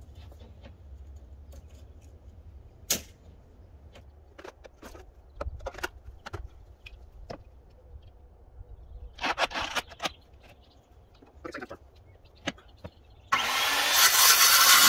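Scattered knocks and clicks of lumber and tools being handled, then about 13 seconds in an electric saw starts up suddenly and runs loud, cutting a framing board to length.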